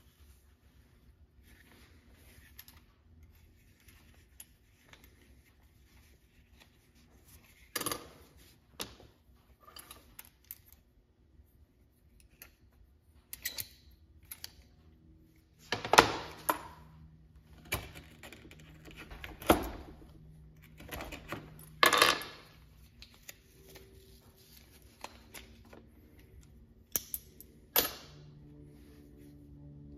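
Old metal tool-belt hardware, a buckle and a hammer-loop clip, handled and set down on a worktop: scattered clicks, metallic clinks and knocks, with the loudest few in the second half.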